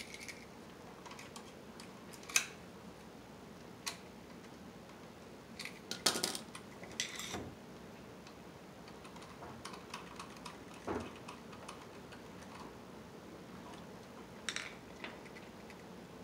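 Irregular small metal clicks, clinks and scrapes of hand tools, pliers and a screwdriver, working the wires and terminal screws of an electrical outlet. A sharper click comes about two seconds in and a quick run of clinks about six to seven seconds in.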